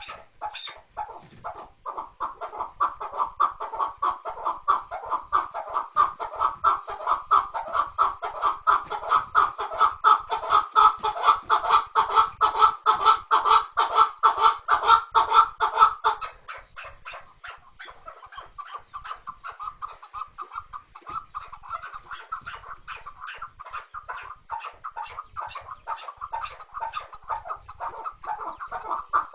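Chukar partridge calling: a fast, unbroken run of repeated clucking notes, several a second. The calling is loud for the first half, drops off about halfway through, and builds again near the end.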